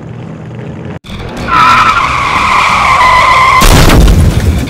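Car tyre squeal sound effect: a loud steady screech that starts about a second and a half in and holds for about two seconds, then gives way to a loud burst of noise with a heavy low end.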